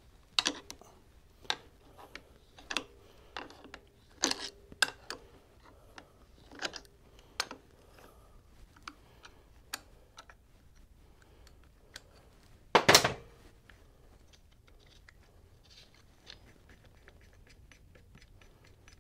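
Sharp metal clicks and taps of wrenches on a clutch spring compressor tool as it is backed off a Harley Sportster clutch, about a dozen spread over the first seven or eight seconds. A louder clatter of metal comes about thirteen seconds in, then only faint ticks.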